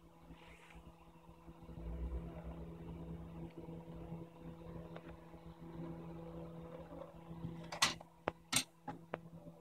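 Steady electrical hum from bench equipment under quiet handling of a phone, then a handful of sharp clicks and taps of small tools near the end.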